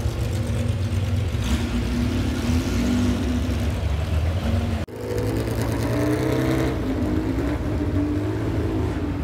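Porsche race car engines running steadily, in two stretches split by an abrupt cut about five seconds in.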